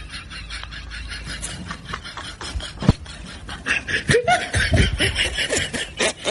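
A person laughing under their breath in short breathy snickers, with a few louder voiced laughs about four to five seconds in.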